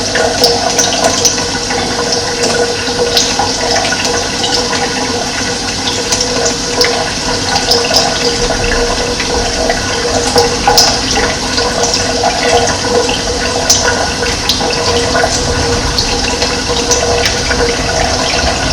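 Steady running water: a continuous rushing flow with short high ticks scattered through it.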